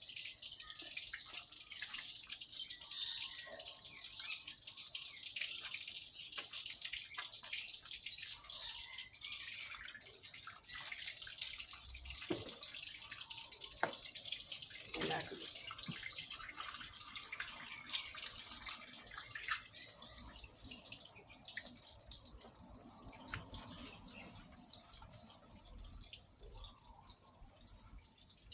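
Running water splashing and dripping steadily as a dog's coat is rinsed of a turmeric and coconut oil paste, with a few louder splashes midway.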